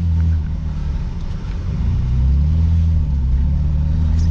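Car engine pulling on the road, its pitch dipping near the start, then climbing gently and holding steady. It runs evenly, the misfire fixed: it sounds pretty good now.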